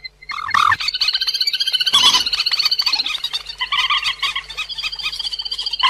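Recorded call of the cuốc biển, a moorhen-like waterbird, played as a trapping lure: a loud, fast run of repeated chattering notes, about ten a second.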